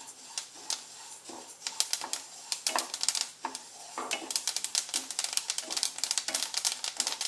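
Flaxseeds popping with sharp clicks as they dry-roast in a hot pan, a wooden spatula stirring and scraping through them; the pops come thicker from about halfway through. The popping shows the seeds are still roasting.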